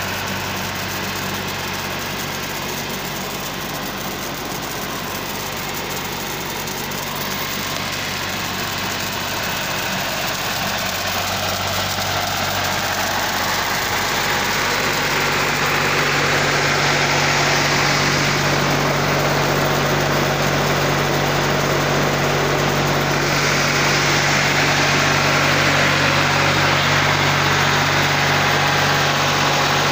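New Holland 4710 tractor's diesel engine running steadily, driving the sprayer's pump, with its note stepping up about halfway through. Under it runs the hiss of liquid spraying from the hand-held spray gun, louder in the later half.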